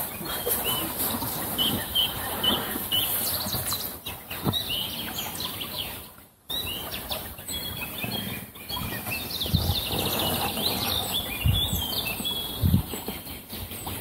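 Wild birds singing and chirping: short repeated high chirps in the first few seconds, then a busier run of quick high notes in the second half. A few low knocks are heard near the middle and near the end.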